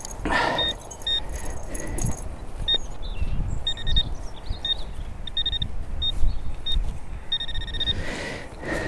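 Metal detector beeping: short high-pitched beeps that come and go irregularly, with a quick run of beeps near the end, signalling a metal target close to the surface. Brief rustling noises near the start and near the end.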